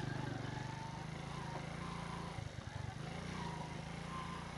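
80cc motorcycle engine running steadily under load in first gear, pulling the bike up a wet hill road, with a brief dip in its note about halfway through.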